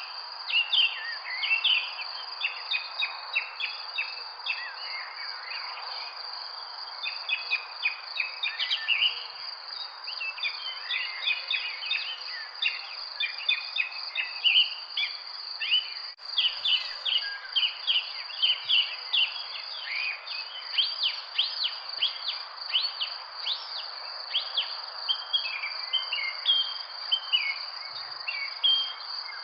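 Many birds chirping and trilling over a steady high-pitched insect drone and a soft hiss of background noise.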